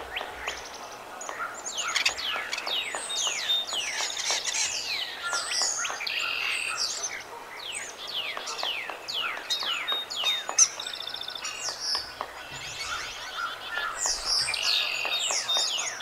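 Several songbirds singing at once, a busy chorus of quick, falling whistles overlapping one another, with a few rapid trills mixed in.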